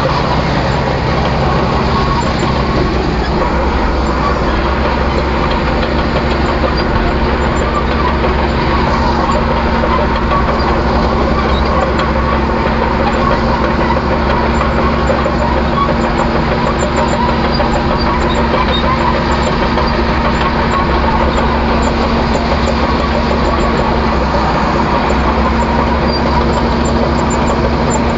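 Truck engine running steadily under way, with a constant low hum and no change in pitch.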